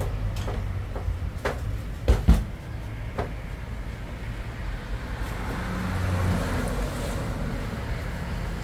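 A few sharp knocks and clatters over a steady low rumble, the loudest two just after two seconds in. A hiss swells from about five seconds in and fades toward the end.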